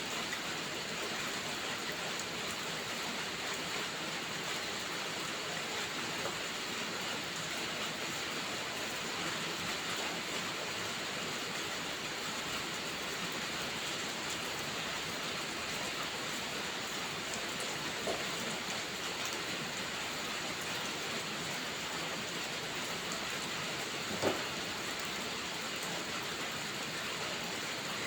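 Steady rainfall hissing and pattering on a surface. Two sharp pops stand out, the second and louder one near the end.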